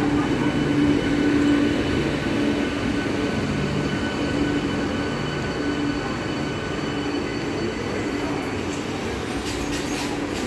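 Southern Railway electric multiple-unit local train rolling slowly alongside the platform: a steady electric hum over the rumble of the wheels, easing slightly, with a few sharp clicks near the end.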